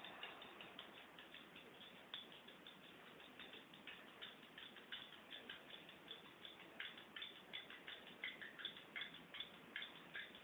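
Teaspoon stirring a spoonful of sugar into a glass of tea, faintly clinking against the glass in quick, irregular light taps.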